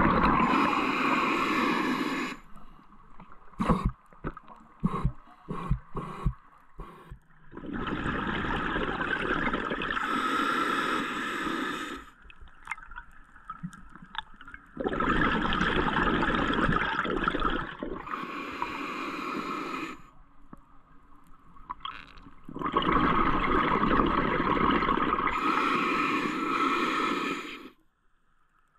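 Underwater sound of a diver's exhaled air bubbles gurgling out in four long bursts, one every seven or eight seconds, with scattered sharp clicks in the quieter gaps between breaths.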